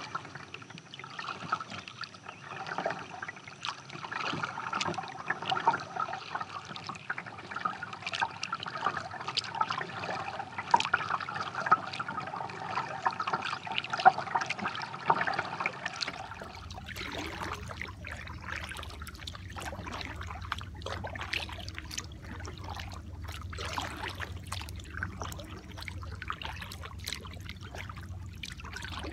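Kayak paddle strokes in calm lake water, with water trickling and dripping off the paddle blades in many small splashes. About sixteen seconds in the sound changes and a low hum comes in under the drips.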